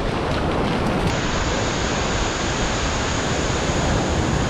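Ocean surf breaking and washing up a sandy beach: a steady rush of water noise, with wind on the microphone.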